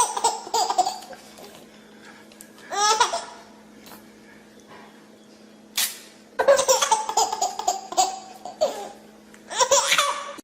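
Laughter in several separate bursts, with a faint steady hum underneath.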